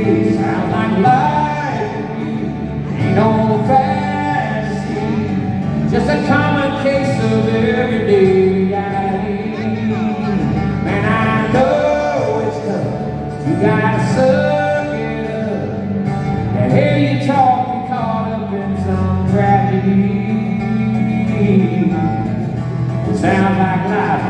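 Live country music: a male lead singer with a full band, guitars among the instruments, playing a song.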